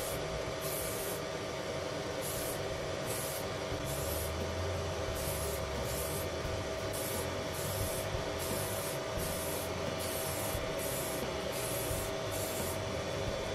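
Aerosol spray can of self-etching primer being sprayed in about a dozen short bursts, roughly one a second, over a steady hum.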